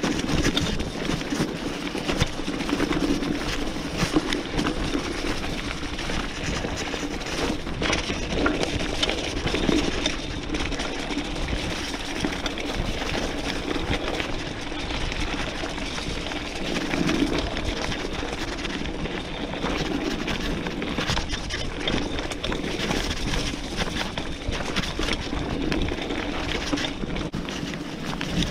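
B'Twin 520 mountain bike riding over a muddy dirt trail: steady tyre rumble on the ground, with frequent small knocks and rattles from the bike over bumps.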